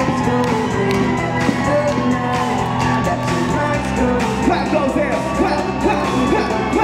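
Upbeat music with singing, over a crowd clapping along and whooping.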